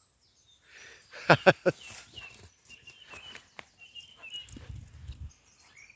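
A few quick, loud yaps from a Border Collie–Cocker Spaniel cross puppy at play, about a second in. Faint bird chirps follow, with a low rumble of wind near the end.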